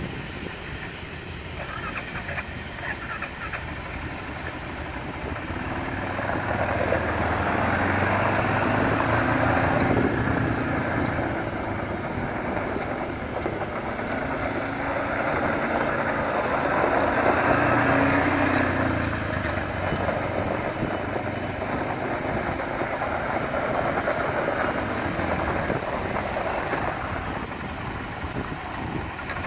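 2018 Arctic Cat Alterra ATV engine running as it is ridden around on gravel, its pitch and loudness rising and falling with the throttle. It is loudest about 7 to 10 seconds in and again around 17 to 18 seconds in, with the tyres crunching on the gravel.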